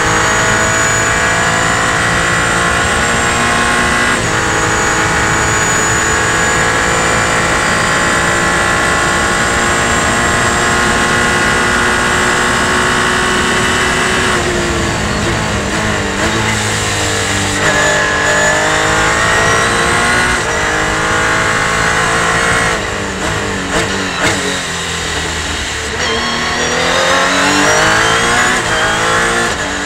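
Onboard engine sound of a Revolution 500 SC race car. It runs at full throttle for about the first fourteen seconds, with an upshift about four seconds in. It then falls away under braking with a string of downshifts, picks up through the corners, drops again, and climbs steadily in pitch near the end as the car accelerates out of a slow corner.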